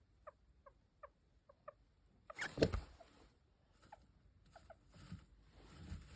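Sleeping hamster snoring: a series of tiny, high squeaky peeps, about five in the first two seconds and a few more later. About two and a half seconds in comes one short, louder burst of noise.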